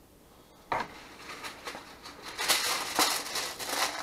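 Aluminium foil crinkling and rustling as it is handled, starting about two and a half seconds in, after a single knock about a second in.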